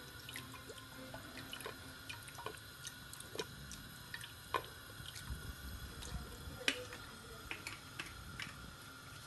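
Faint, irregular drips and small pops of liquid as soy sauce is poured from a bottle into a pot of chicken stock heating toward the boil, over a faint steady hum.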